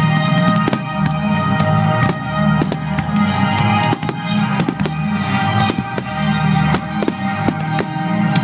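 Fireworks finale: a rapid run of sharp bangs, about two a second, over loud music.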